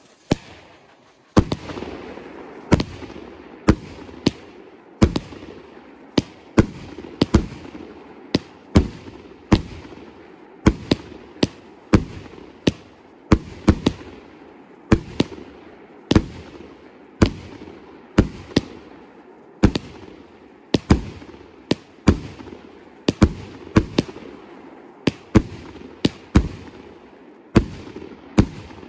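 Funke Eisbrecher 25-shot, 25 mm salute firework cake firing. It gives a string of sharp, loud bangs about one a second, with a rumbling echo between shots.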